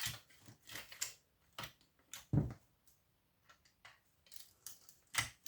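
Scattered light clicks and taps of hand tools and small metal parts being handled while components are stripped off electronic circuit boards, with one louder knock about two and a half seconds in.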